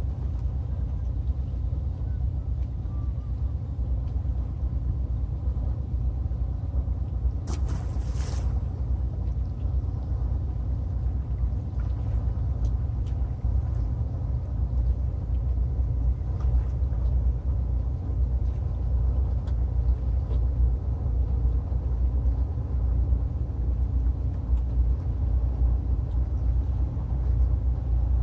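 A steady low rumble with an uneven flutter, with one short hissing noise about seven and a half seconds in and a few faint ticks a few seconds later.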